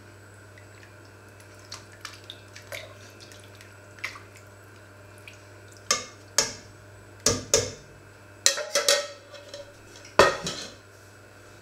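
Metal ladle stirring in a stainless steel soup pot, then a run of sharp metallic clanks and knocks as the ladle and pots are handled, the loudest near the end.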